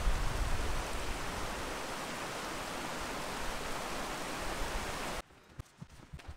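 Mountain creek rushing over rocks, a steady loud wash of water that cuts off abruptly about five seconds in. After it, a few faint clicks and knocks.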